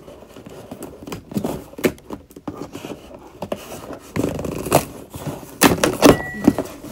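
Scissors scraping and snipping at the packing tape on a cardboard box, with knocks against the cardboard as the tape is pulled up. The sounds come in irregular clicks and scrapes that grow louder in the second half.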